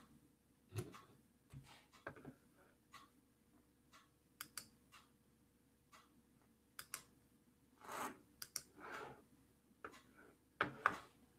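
Faint, irregular clicking and tapping on a computer keyboard and mouse, with a few louder taps in the second half.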